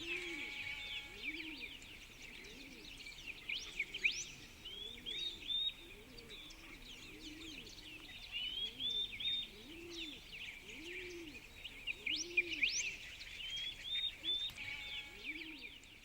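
Farmyard ambience: many small birds chirping and twittering. Under them, a low call repeats about once a second.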